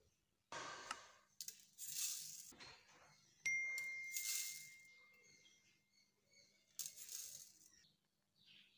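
Soft swishes, then about three and a half seconds in a click and a single clear ding that rings on for about three seconds. These are the sound effects of an on-screen subscribe-button animation.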